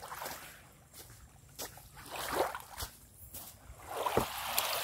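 Small waves lapping at a sandy shore, coming in soft swells every second or two, with a few light clicks between them.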